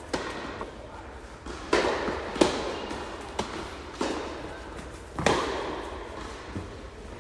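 Tennis rally: rackets striking the ball and the ball bouncing on the court, a sharp knock every second or so, several of them trailing off with some echo.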